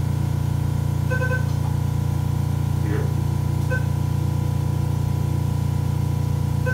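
Short electronic beeps from the RhinAer radiofrequency treatment console, heard a few times (a quick double beep about a second in, one near the middle, one at the end) as the stylus treats the nasal lining. A loud, steady low hum runs beneath them.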